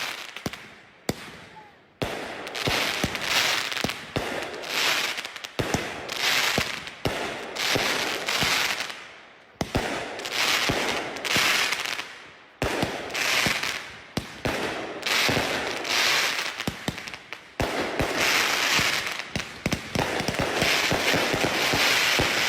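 Consumer fireworks going off in a fast, unbroken series: sharp bangs, each followed by a crackling that swells and fades, repeating about once a second.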